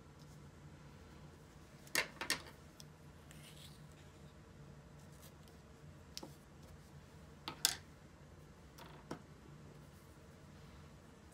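Scissors snipping washi tape and small handling clicks: a few short, sharp sounds, two close together about two seconds in and a pair near the eight-second mark, with a faint steady hum beneath.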